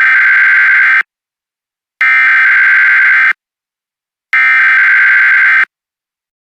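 Emergency Alert System SAME header: three bursts of raspy, buzzing digital data tones, each about a second and a half long with about a second of silence between them, the first already under way. These coded bursts carry the alert's event type, area and duration ahead of the message.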